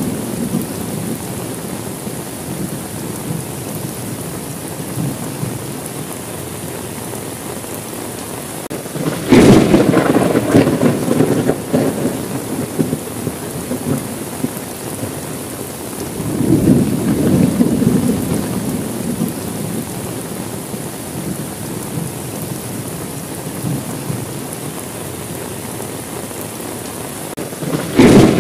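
Steady rain with thunder. A sudden crack about a third of the way in rolls on as a rumble for several seconds, a softer rumble swells a little after the middle, and another crack breaks in near the end.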